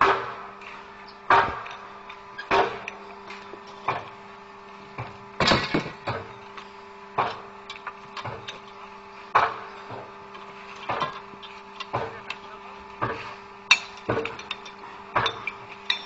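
Repeated metal-on-metal hammer blows on the clamp coupling of a steel concrete delivery pipe, knocking it loose to take the pipeline apart. The blows come about once a second, some in quick pairs, each ringing briefly, over a steady low hum.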